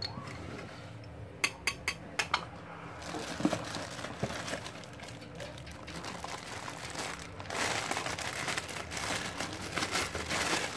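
A few sharp plastic clicks, then a clear plastic bag crinkling continuously as hands handle and unwrap a spinning reel packed inside it. The crinkling grows louder from about seven and a half seconds in.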